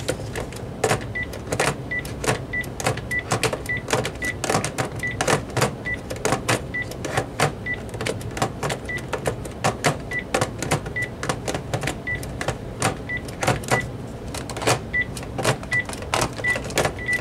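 Plastic clicks and handling of a Panasonic DECT 6.0 cordless phone base and handset as buttons are pressed and the handset is set into its charging cradle, with a short high electronic beep every second or so.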